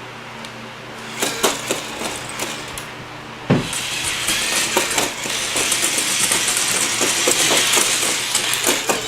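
Remote-controlled HEXBUG robot toy starting to walk: a few clicks and a sharp thump, then from about four seconds in a steady rapid clicking clatter of its small motor, gears and plastic legs.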